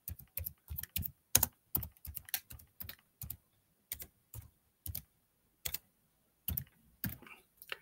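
Computer keyboard being typed on: irregular keystrokes in short runs with brief pauses between them, as words are entered one by one.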